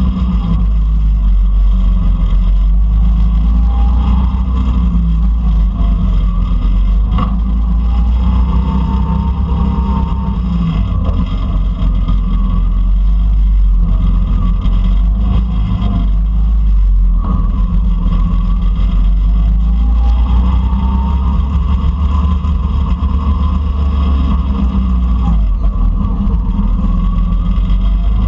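Go-kart engine running hard on track, its pitch rising and falling several times as the kart accelerates and lifts through the corners, heard from on board with a heavy low rumble.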